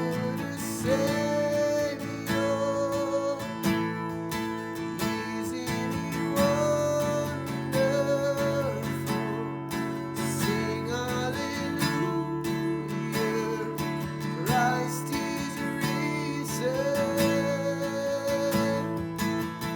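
Acoustic guitar strumming steady chords in a worship song, with a melody line above that slides between long held notes.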